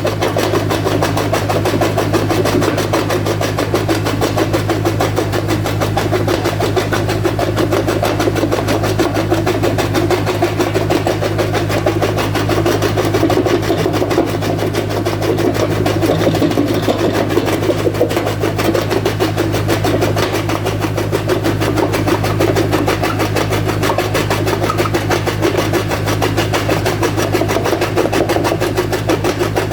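Jaw crusher machine running steadily, a loud continuous mechanical hum with a fast rattling texture.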